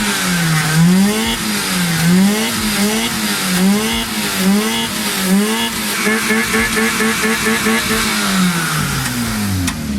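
Mazda RX-7 twin-rotor rotary engine revving in repeated blips, its pitch rising and dipping about once a second. It holds high with a rapid even stutter for a couple of seconds, then falls back near the end.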